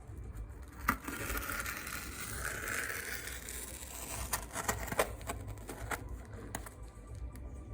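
Handling noise: a few seconds of scraping or rustling, with several sharp clicks or knocks scattered through it.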